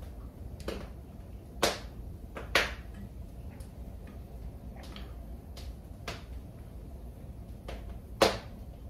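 Sharp wooden clicks and knocks from a spinning wheel's flyer and fittings being handled and adjusted by hand during a repair, about seven in all, three of them much louder, over a low steady rumble.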